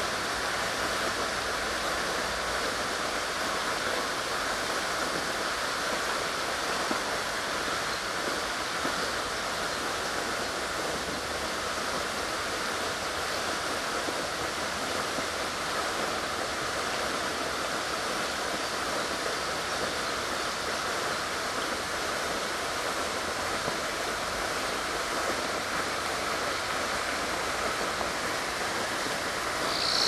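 A steady, even rushing noise with no pitch or rhythm.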